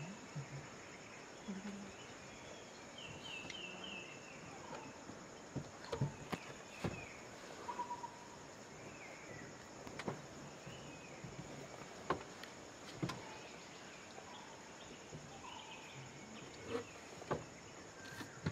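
Forest ambience: a steady high insect drone with scattered bird calls, including a quick run of four short chirps about three seconds in. A few sharp clicks sound now and then from about six seconds on.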